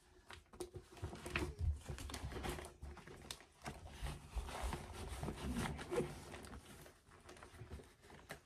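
Rustling and crinkling as a needlepoint canvas is pulled out of a project bag and handled, with scattered small knocks.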